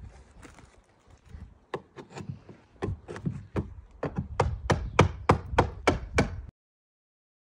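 Repeated hammer blows on the shed's wooden roof edge, sparse at first and then quickening to about three sharp strikes a second, before cutting off abruptly.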